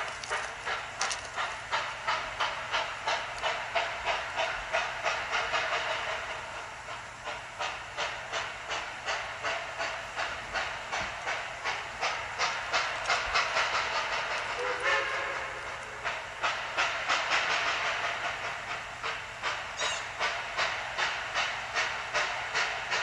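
Model Union Pacific 838 steam locomotive's sound system playing rhythmic steam-exhaust chuffs with hiss, about two beats a second. A brief whistle-like tone sounds about fifteen seconds in.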